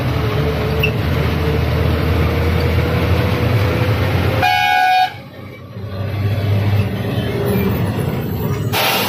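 Fire engine driving, heard from inside the cab: steady engine rumble and road noise, with one short horn blast about halfway through. A brief rush of noise follows near the end.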